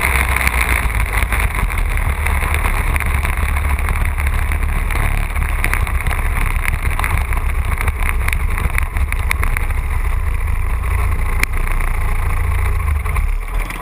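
Racing lawn tractor's engine running under load, heard close up from its hood, with wind noise on the microphone and scattered sharp clicks.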